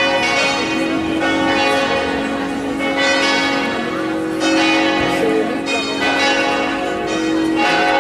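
Church bells pealing: several bells struck in turn, each new strike coming every second or so while the earlier tones ring on and overlap.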